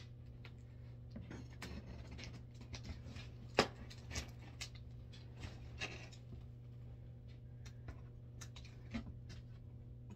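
Scissors scraping and snipping at the packing tape on a cardboard box, with scattered small clicks and rustles of cardboard and one sharper snap about three and a half seconds in. A steady low hum runs underneath.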